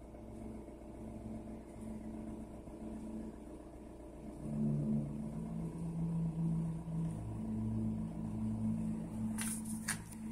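Music playing from a powered mixer amplifier's built-in USB MP3 player, heard mostly as a deep bass line of low notes that change every half second or so, growing louder about four and a half seconds in. A few sharp handling clicks come near the end.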